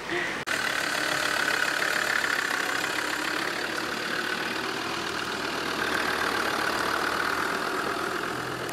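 Land Rover Defender Td5's five-cylinder turbodiesel engine running steadily at low revs as the vehicle crawls slowly along a dirt track.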